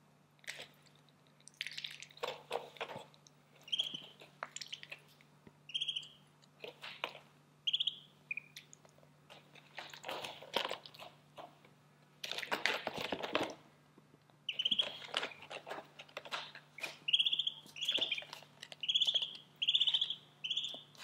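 Ducklings peeping: short high chirps, many times and often in quick runs. Between them come the crunching, splashy noises of ducklings pecking and dabbling in feed and water dishes, with one longer stretch of it about halfway.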